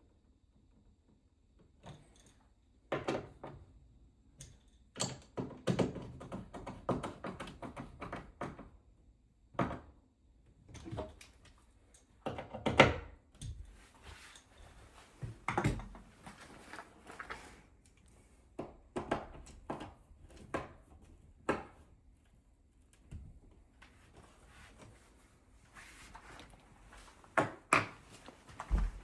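Irregular knocks, thunks and short rattles of tools and metal wall-mount hardware being handled and fitted, with quiet gaps between them and a few louder clanks.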